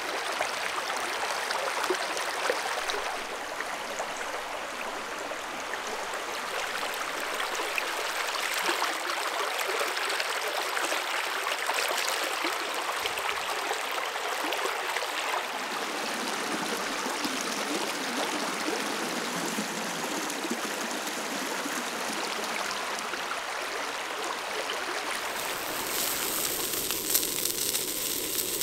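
Steady rushing of a river's flowing water, turning brighter and hissier near the end.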